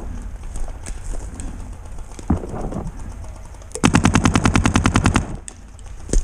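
Paintball marker firing: one single pop, then a fast full-auto burst of about a dozen shots a second lasting about a second and a half.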